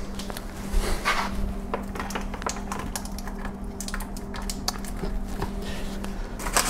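Light knocks and clatter of a propane hose and its fittings being handled and pulled out from under a table. Under them runs a steady low hum that stops near the end.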